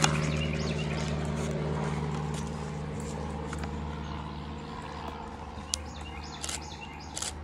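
A steady low motor or engine hum, fading away gradually. A few light knocks, like footsteps, come near the end.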